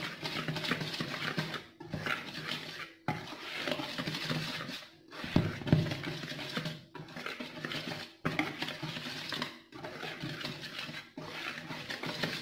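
Wire whisk stirring dry flour in a plastic mixing bowl, a scratchy rustle of wires through powder and against the bowl's sides, broken by short pauses every one to two seconds. It is the dry pizza-dough ingredients (flour, instant yeast, dry milk, sugar and salt) being mixed together before any oil or water goes in.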